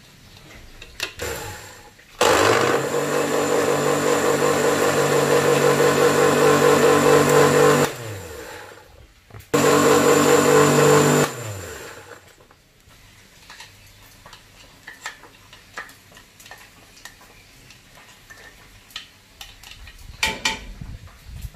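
Electric blender grinding chopped chillies, shallots, garlic and ginger into a spice paste. It runs steadily for about six seconds and winds down, then runs again for about two seconds and winds down. Light clicks and knocks follow.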